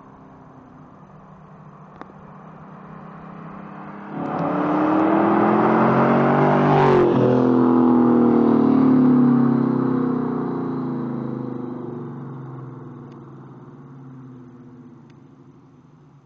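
2003 Ford Mustang GT with a swapped-in four-valve V8, running through long-tube headers, high-flow catalytic converters and a Magnaflow cat-back exhaust, making a wide-open-throttle fly-by in second gear. It approaches faintly, goes to full throttle about four seconds in with revs climbing, drops sharply in pitch as it passes close about seven seconds in, then fades away into the distance.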